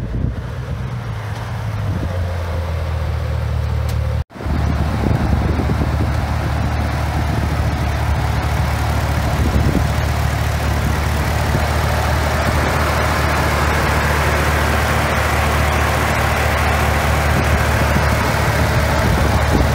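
Swapped Gen V GM LS V8 in a Jeep Wrangler JK running as the Jeep drives up, then, after a sudden cut about four seconds in, idling steadily with the hood open.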